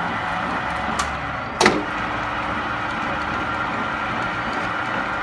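Metal lathe running with its chuck spinning, a steady machine hum with a held whine, during the cutting of a double-start thread. Two sharp clicks come about a second and a second and a half in, the second one louder.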